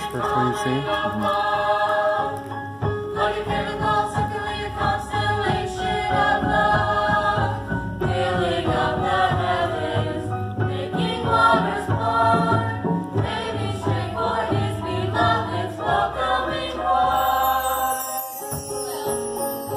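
Stage musical cast singing together as a chorus, accompanied by piano.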